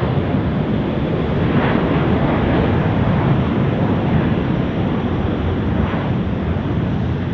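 Qantas Airbus A330-300's twin General Electric CF6 turbofans at takeoff-climb power, a loud steady jet roar that eases slightly near the end as the airliner climbs away.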